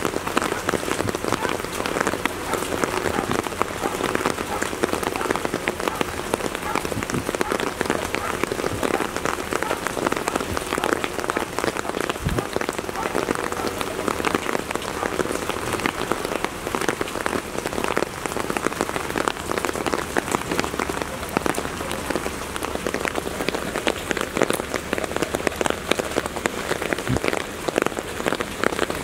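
Steady heavy rain falling, a dense continuous hiss made of countless separate drop ticks.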